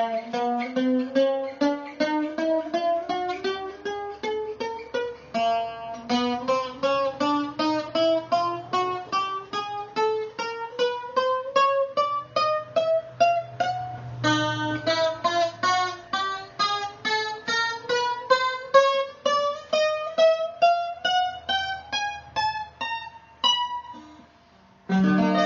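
Handmade bouzouki with brass frets, picked one note at a time in three steady climbs up the fingerboard, about four notes a second, to show that the frets don't buzz. After a brief pause near the end, a chord is strummed.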